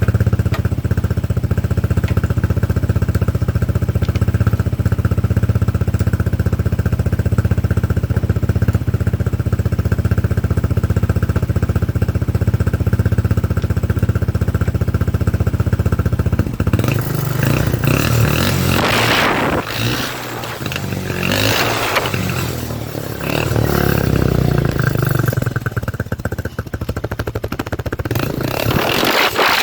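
Apache quad bike (ATV) engine running steadily and loudly, then from about seventeen seconds in the sound turns uneven, with repeated surges of noise.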